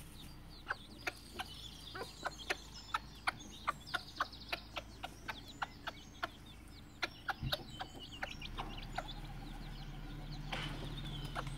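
Gauloise dorée hen clucking in a quick run of short clucks, about three a second, while leading her chicks; the chicks' faint high peeps come in between. The clucking stops about seven and a half seconds in.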